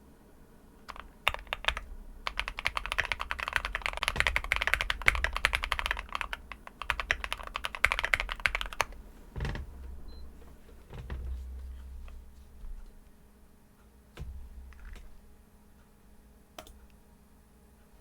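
Typing on an Akko MOD001 mechanical keyboard with linear switches (JWK Ultimate Black housings, Kailh Red stems) on a polycarbonate plate with foam dampening. A fast, continuous run of keystrokes lasts from about two to nine seconds in, then slows to scattered single keypresses.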